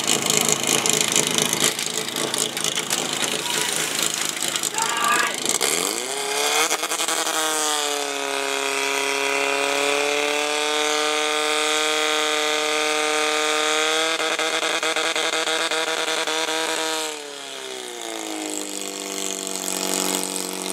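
Portable fire pump's engine revving up about six seconds in and holding a high, steady pitch for about nine seconds at full throttle, pumping water through the attack hoses, then dropping back near the end. Before the rev, the running engine is mixed with shouting.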